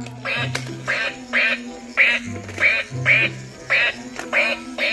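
Battery-operated toy duck making electronic quacks, repeated about twice a second.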